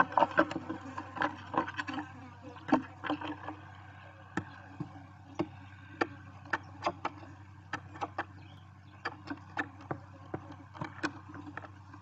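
Barn owl chicks moving about in their tree-hollow nest. Scratchy rustling in the first few seconds gives way to scattered sharp clicks, about one or two a second, over a steady low hum.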